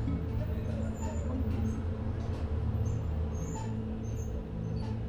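A steady low machine-like hum, with scattered faint high chirps and light clicks.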